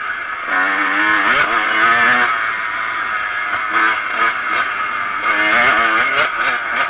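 Kawasaki KX125 125cc two-stroke motocross bike engine being ridden, its pitch climbing and dropping repeatedly as the throttle is worked, with a long rising rev about half a second in and shorter ones later.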